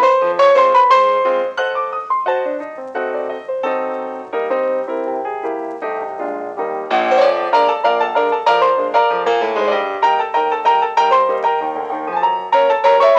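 Background piano music: a quick, bright melody of struck notes that grows louder about seven seconds in.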